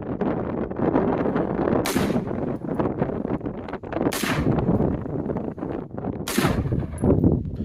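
Three AR-15 rifle shots about two seconds apart, each a sharp crack with a short tail, over steady wind noise on the microphone.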